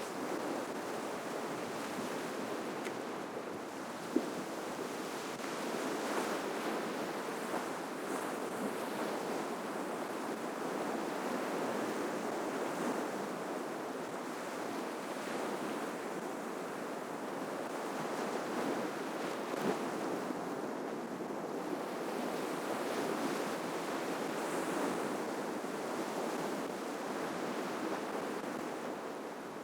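Ocean waves breaking and washing up the shore: a continuous surf hiss that swells and eases every few seconds. A single brief tick comes about four seconds in.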